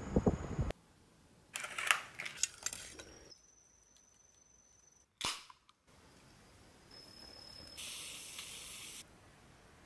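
A short run of cooking sounds cut together. First come a couple of seconds of clattering clicks, then one sharp crack a little past halfway. Near the end there is about a second of high sizzling from scallops and prawns on a shichirin charcoal grill.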